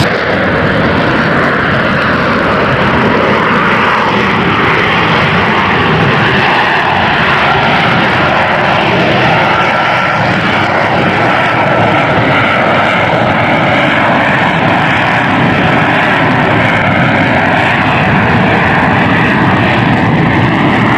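Airplane engine running loud and steady, with a faint, slowly wavering whine over the noise.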